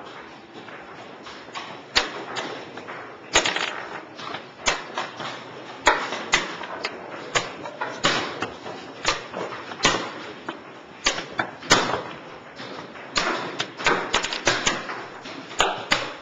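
Chess pieces being set down on a board and a chess clock being pressed during quick play: an irregular string of sharp clicks and knocks, about one or two a second.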